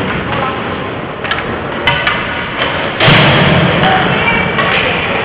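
Ice hockey game sounds in a rink: sharp knocks of puck and sticks against the boards over a steady din of spectators, with a louder burst of noise about three seconds in.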